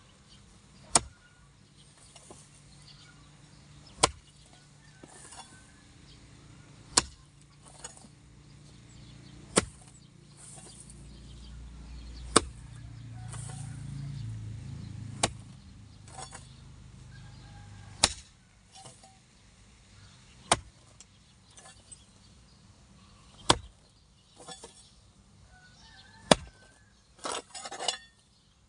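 A hoe blade chopping into hard, dry grassy ground, one sharp strike about every three seconds, about ten in all, with a quick run of smaller knocks near the end. A low rumble swells and fades in the middle.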